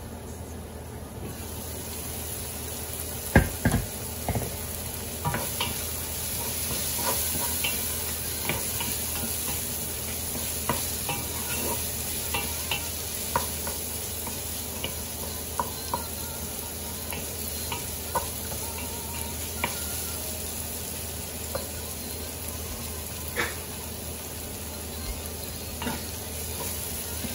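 Sliced onions and cherry tomatoes sizzling in oil in a nonstick pot, the sizzle growing louder about a second in. A wooden spoon stirs them, tapping the pan with frequent light clicks, with one louder knock a little over three seconds in.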